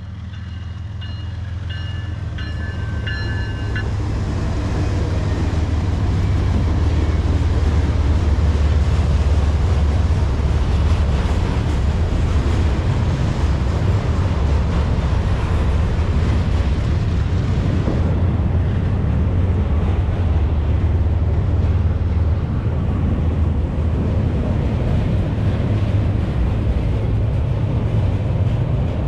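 Freight train rolling past: a steady low rumble of the cars on the rails that builds over the first few seconds and then holds.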